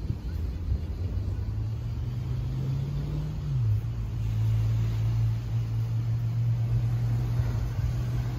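Engine running with a steady low hum; its pitch drops a step about three and a half seconds in, then holds steady again, over a low rumble.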